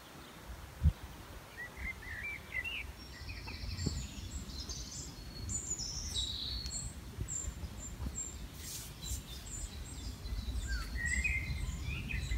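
Songbirds chirping and singing, many short high notes in quick phrases, over a low steady rumble, with one sharp knock about a second in.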